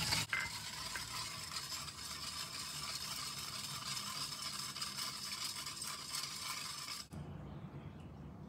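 Wire balloon whisk scraping and clinking against the sides and bottom of a metal pot as coconut milk is whisked to dissolve sugar and salt. The whisking stops suddenly about a second before the end.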